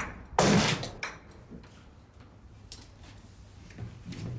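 A wooden apartment door bangs open about half a second in, followed by quieter shuffling and a few faint knocks.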